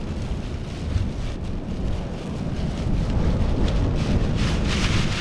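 Wind buffeting the microphone: an uneven low rumble, with louder hissing gusts from about four seconds in.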